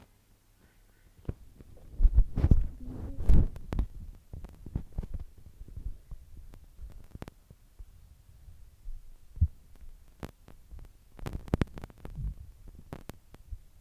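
Irregular low thumps and sharp knocks over a faint low hum, busiest in the first few seconds and again near the end, with no music.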